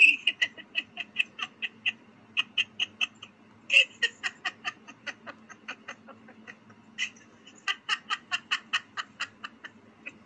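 A person laughing in four bouts of quick, repeated pulses, with short pauses between them.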